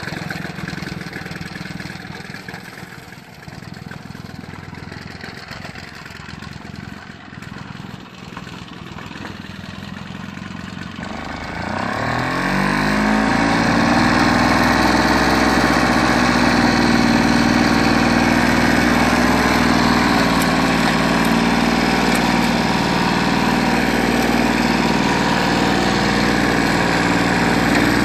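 Victa 160cc two-stroke lawnmower engine starting up about eleven seconds in. Its pitch rises quickly as it revs up, then it settles into a loud, steady run.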